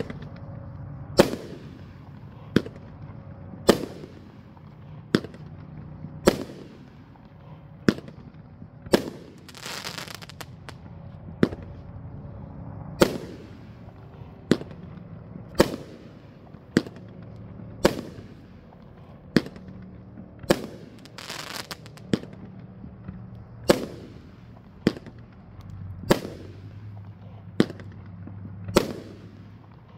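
Elite Fireworks 'Blazing Fire' 500-gram, 16-shot cake firing: a steady string of sharp bangs, about one every second and a quarter, with a crackling hiss after a couple of the breaks.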